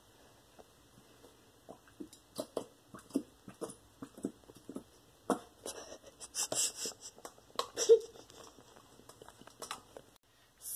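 Clear glue glugging out of a bottle into a plastic cup: irregular short sputters and squelches as air works back into the bottle, starting about two seconds in and busiest in the middle.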